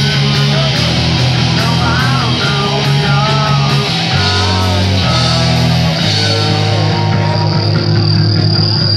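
Small rock band playing live, loud: electric guitar, electric bass and drum kit with cymbals. Near the end a steady high-pitched tone comes in over the band.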